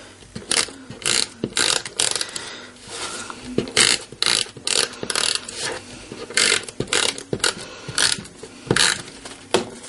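Adhesive tape runner being run over the back of a paper card panel in a string of short strokes, a ratcheting rattle with each stroke.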